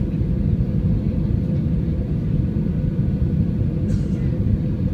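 Cabin noise inside an Airbus A320 airliner on approach to land: a steady low rumble of engines and airflow, with a short faint click near the end.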